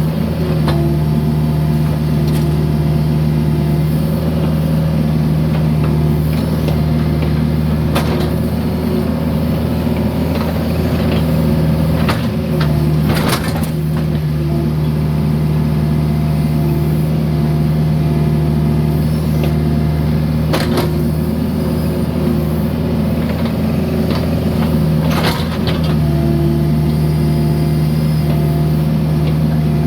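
Mini excavator's diesel engine running steadily under work, with a handful of sharp knocks and clunks as concrete is moved.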